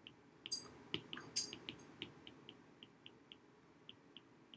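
Stylus tapping and ticking on a tablet's glass screen during handwriting: a run of faint, quick, irregular ticks, with a few sharper clicks in the first second and a half.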